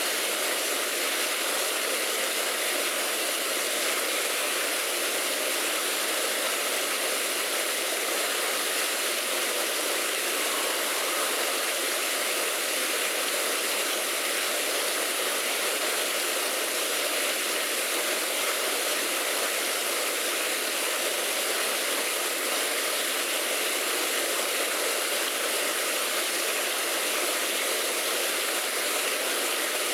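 A steady, even rushing hiss that runs without a break or any change, with no distinct events in it.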